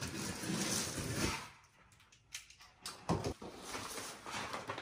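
Large cardboard shipping box being opened: cardboard scraping and rustling, a short pause, then a few sharp knocks about three seconds in followed by more rustling as the flaps are handled.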